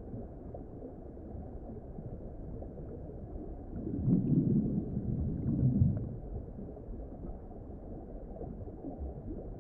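Muffled underwater ambience: a steady low rumbling water noise, swelling louder for about two seconds in the middle.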